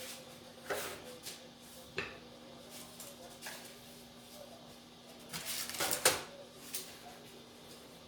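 Kitchen handling sounds: a few light knocks and clinks of dishes and utensils, with a louder clatter about six seconds in.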